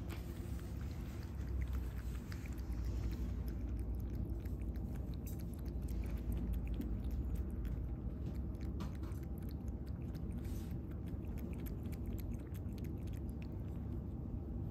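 A cat lapping water from a ceramic bowl: a run of quick, small wet clicks over a low, steady background rumble.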